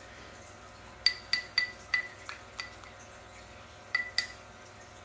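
Plastic baby spoon tapping and scraping in a ceramic bowl: a quick run of about six clinks, each with a brief ring from the bowl, then two more clinks about four seconds in.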